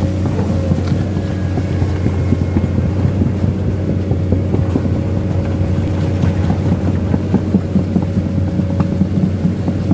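Komatsu PC210 excavator's diesel engine running with a steady drone as the machine tracks through a shallow muddy stream, with dense irregular clattering from its steel tracks.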